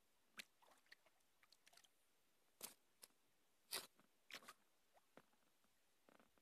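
Near silence broken by faint, short, irregular clicks and crackles, the two loudest about two and a half and nearly four seconds in.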